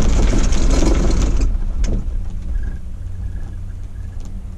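Chairlift chair running through a lift tower: a loud rumbling rush as the chair's grip passes over the tower's sheave wheels, dying away after about a second and a half with a sharp click. After that comes a steady low hum of the moving chair on the cable.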